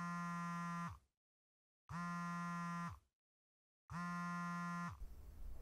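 Mobile phone buzzing with an incoming call: three steady one-second buzzes about a second apart.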